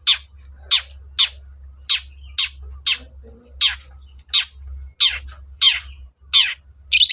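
Long-tailed shrike (cendet) calling: a steady series of harsh, short notes, each sliding downward in pitch, repeated about twice a second.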